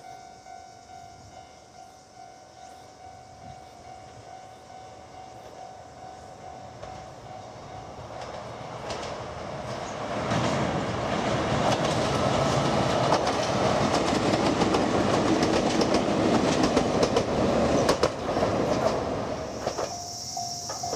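Japanese level-crossing warning bell ringing steadily, then a Chichibu Railway 5000 series electric train (ex-Toei 6000) passes over the crossing, building up and running loud for about ten seconds with wheels clicking over the rail joints. Near the end the train noise drops away and the crossing bell is heard again.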